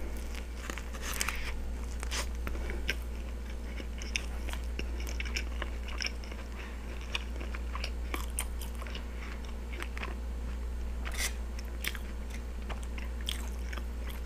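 A person biting into a steak and cheese sub on a soft sub roll, then chewing it, with many short wet mouth clicks. A steady low hum runs underneath.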